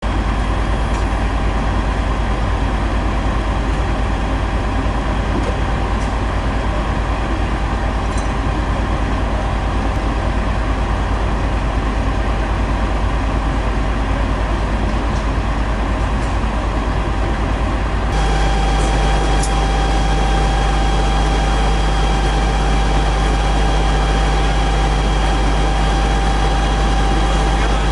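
Fire engine running steadily with a deep engine drone and a steady whine above it. About two-thirds of the way through, the drone and whine become louder.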